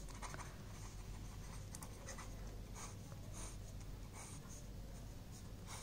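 Pen scratching on paper in many short, irregular strokes while writing a word and ruling lines across a drawing.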